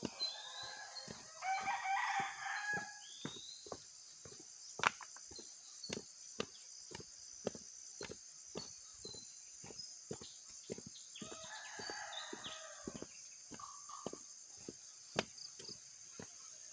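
A rooster crowing twice, once right at the start and again about two-thirds of the way through, each call lasting a couple of seconds. Under it, footsteps on a dirt path and a steady high-pitched drone.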